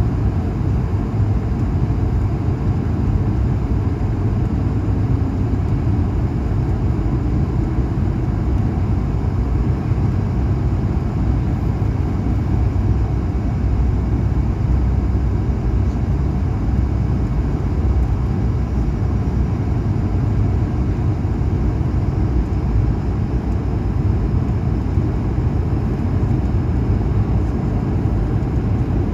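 Loud, steady drone of a jet airliner's engines and rushing air, heard from a window seat inside the cabin, deep and unchanging.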